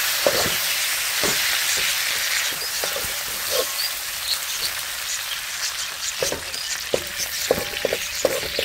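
Chicken pieces and fried shallots sizzling in a little oil in a steel wok, with a steady hiss. A perforated metal skimmer stirs them and scrapes and knocks against the pan, more often in the last few seconds.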